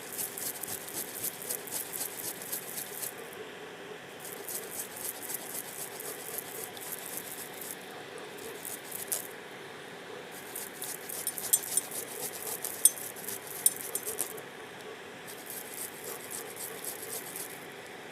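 Fresh ginger root being grated on a hand grater: quick rasping strokes in runs of a few seconds with short pauses between, and a few sharp clicks partway through.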